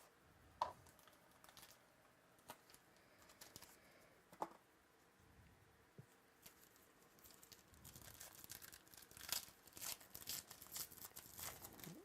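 Trading card box and its wrapper being handled and torn open: a few sharp clicks and taps, then from about six seconds in a run of crinkling and tearing.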